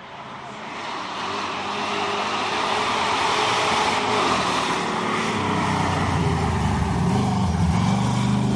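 A hillclimb race car approaching under power, its engine growing steadily louder over the first few seconds. Near the end the engine note dips briefly and then picks up again.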